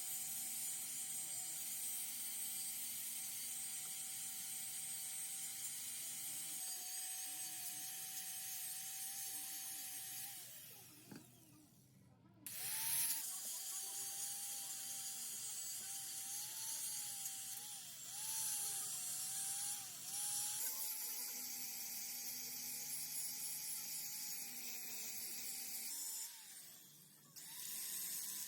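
Electric power tool motor running with a steady whine and a high hiss, its pitch wavering and dipping as it is worked under load. It runs down and stops about eleven seconds in, starts again, and stops and restarts once more near the end.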